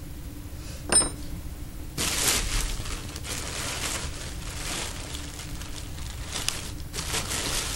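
A sharp click about a second in, then a few seconds of uneven rustling and handling noise with small ticks, as things are moved about on the table.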